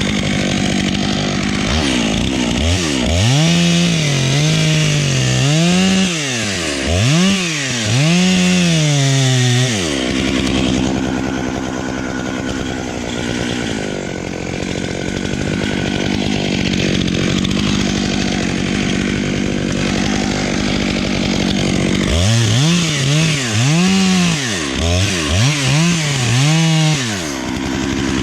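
Gas chainsaw running, its engine revved up and down again and again from about two seconds in, then held steadier, then revved up and down again near the end.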